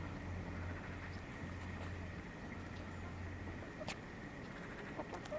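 Hens clucking softly in short calls near the end, over a steady low hum and background noise, with one sharp click about four seconds in.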